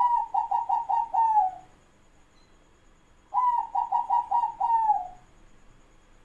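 Zebra dove (perkutut) cooing: two song phrases, each a quick run of about five notes ending in a longer falling note, the second phrase starting about three seconds after the first.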